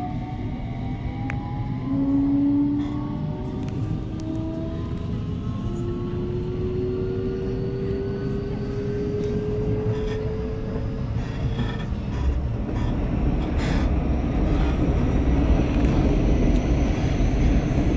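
JR West 223 series 2500-subseries electric train with a Hitachi IGBT VVVF inverter, accelerating. The traction motors' whine rises in several stepped tones over the first ten seconds or so, then fades under a growing rumble of wheels on rail as speed builds.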